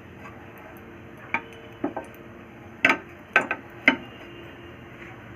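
Kitchen utensils clinking: five short, sharp knocks of metal or glassware, the last three louder and close together in the second half.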